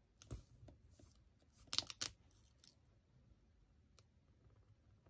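Paper sticker being pressed and smoothed onto a planner page by hand: a few light clicks and taps of fingers on paper, the loudest pair about two seconds in, otherwise quiet.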